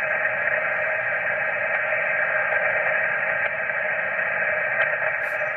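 Steady static hiss of HF band noise from a Yaesu FT-857D receiving upper sideband on the 20-metre band, with no station on frequency as the dial is tuned upward.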